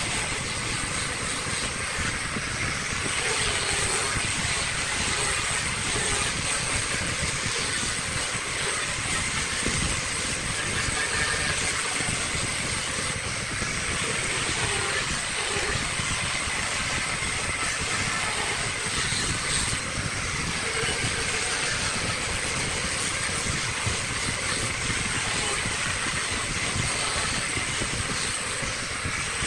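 Electric angle grinder fitted with a sanding drum, running with a steady high whine as it sands a wooden workpiece turning on a lathe, the abrasive hiss of sanding mixed in.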